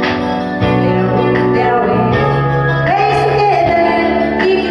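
A woman singing into a microphone over a recorded instrumental backing track, holding one note briefly about three seconds in.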